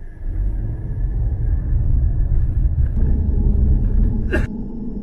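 Low rumble of street traffic that builds and then cuts off abruptly with a sharp click about four and a half seconds in.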